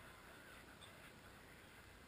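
Near silence: faint open-air hiss with a faint waterbird call about a second in.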